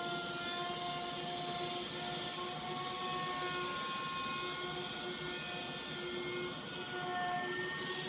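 Table-mounted router running at full speed with a steady high whine, its bearing-guided bit trimming a curved wooden coat-hook blank fed by hand. The pitch wavers slightly as the bit takes the cut.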